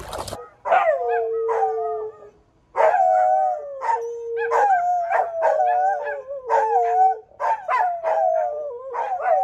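Two Australian Shepherds howling together: a string of loud howls, each starting high and sliding down to a held, wavering note, one dog pitched a little above the other, breaking off and starting again about once a second.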